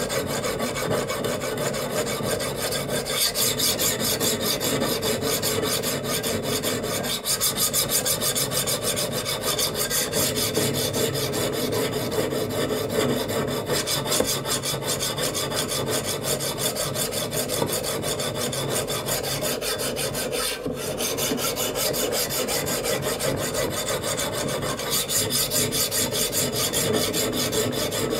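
Sharpening stone grinding the edge bevel of a steel knife blade: a continuous abrasive rasping of stone against steel, with one momentary break about two-thirds of the way through.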